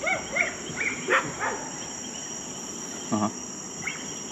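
Night chorus of crickets and other insects, a steady high-pitched trill, with several short chirping calls in the first second and a half and a brief low sound about three seconds in.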